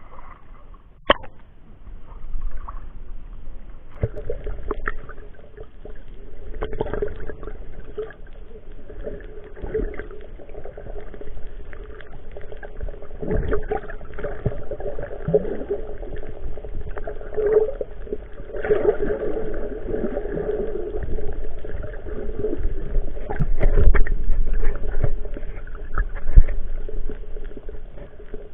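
Muffled water noise picked up by an action camera below the surface: water gurgling and sloshing with a low rumble and scattered knocks against the camera, loudest near the end.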